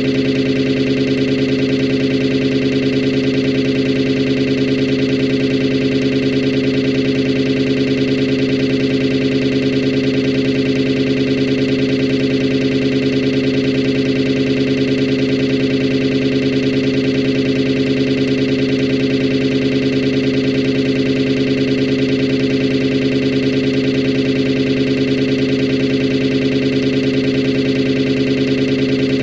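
Synthesized sawtooth-wave chord with a flanger effect, held as one steady, unchanging drone.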